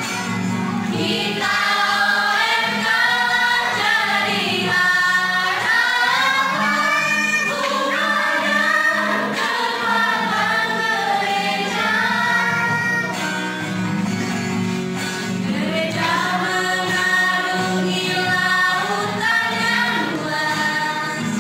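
Mixed youth choir of girls and boys singing a church hymn together, held notes flowing one into the next without a pause.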